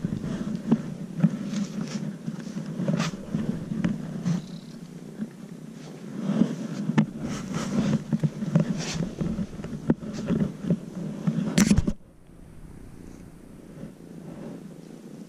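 Kitten purring steadily close to the microphone, mixed with rustling and clicks from hands and fur being handled. A sharp click comes near the end, after which the purring is fainter.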